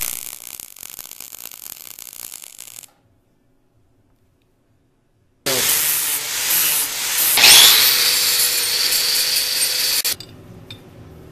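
MIG welding arc crackling for about three seconds. After a silent gap, an angle grinder grinds the fresh weld on the end of a steel rod, and its whine rises partway through; the weld is being ground down to a small button-shaped nub.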